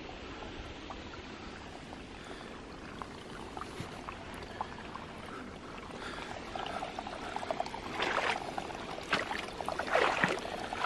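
Water trickling and running steadily. In the second half, footsteps and rustling in leaf litter come in over it, with a few louder crunches.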